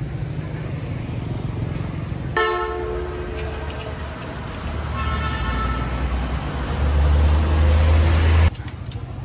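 Motor vehicle engine running on the road, with a vehicle horn tooting twice: once about two and a half seconds in and again about five seconds in. The engine grows louder near the end, then stops abruptly.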